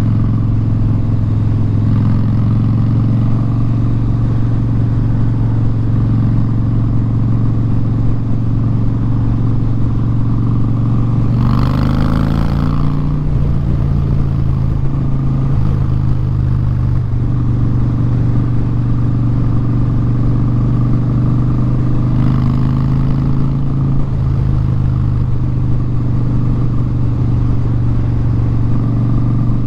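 2017 Harley-Davidson Street Bob's V-twin running through Vance & Hines Short Shots straight pipes while cruising at a steady pace. About twelve seconds in, the engine note steps up and holds at the higher pitch, with a brief rush of noise at the same moment.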